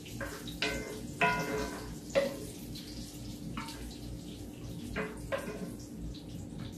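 Sharp clinks of kitchenware, several in the first half, the loudest about one and two seconds in, over a steady hiss.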